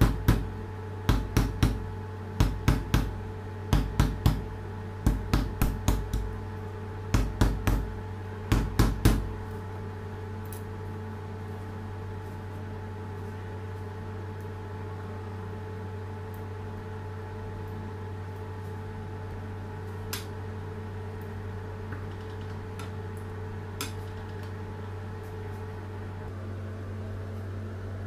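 Sharp knocks in quick groups of two to four for about nine seconds as a fondant cutter is pressed down through a fondant sheet onto a stone counter. The knocks then stop, leaving a steady low hum with a couple of faint clicks.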